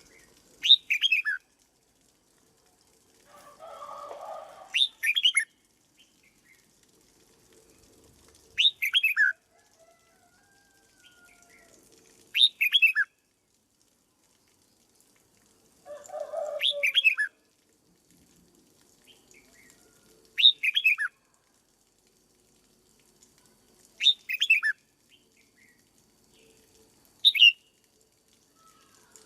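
Red-whiskered bulbul singing the same short phrase of quick, falling whistled notes eight times, about every four seconds. Twice a softer, lower, rougher sound comes just before a phrase.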